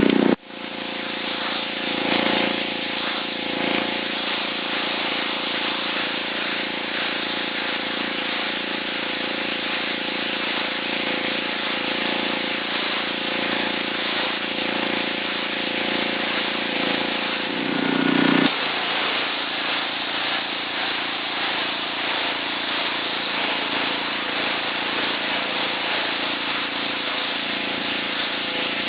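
Gas pressure washer's Honda 5 hp engine running steadily under load, with the hiss of the high-pressure water jet on concrete. About 18 seconds in there is a brief low surge, after which the engine's note shifts slightly.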